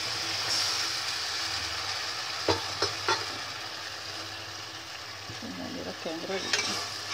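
Manchurian sauce simmering and sizzling in a steel pot as cornflour slurry is stirred in, with three light clicks of a metal ladle against the pot a little over two seconds in.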